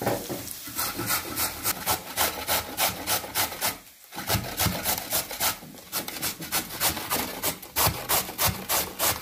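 A carrot being grated on a stainless steel box grater standing on a wooden cutting board: quick rasping strokes, about four a second, with a short break about four seconds in.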